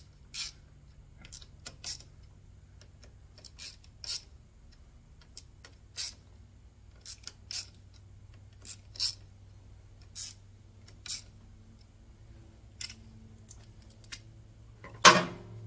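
Torque wrench ratchet clicking in short, irregular strokes, about one or two clicks a second, as the clutch pressure-plate bolts are run down by hand. There is one louder metallic clunk near the end.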